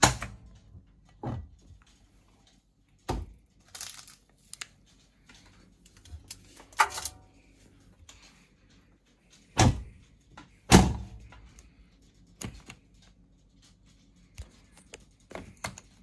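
A Miele front-loading washing machine being handled: a series of sharp clunks and knocks from its door. Two heavy thuds about a second apart, a little past the middle, are the loudest, typical of the door being shut. Near the end come small clicks from the programme dial being turned.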